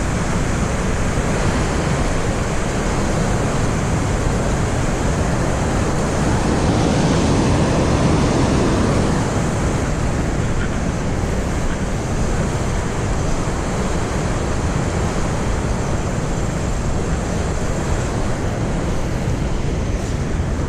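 Steady rush of water pouring through a dam spillway: an even, unbroken noise that swells a little partway through.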